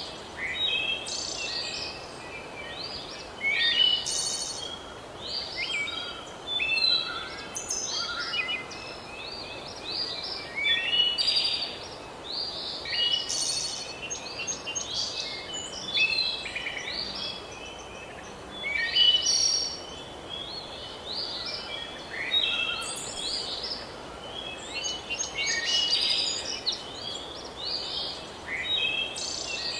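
Several songbirds chirping and singing in short, overlapping phrases, over a faint steady hiss.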